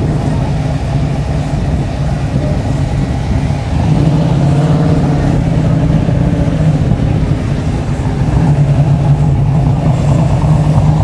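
Engines of classic cars and trucks idling and running in slow cruise traffic, a low steady engine note that grows louder about four seconds in and again near the end.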